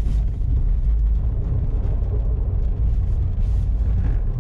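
Dodge Nitro's V6 engine running on engine oil used as fuel, a steady low rumble heard from inside the cabin.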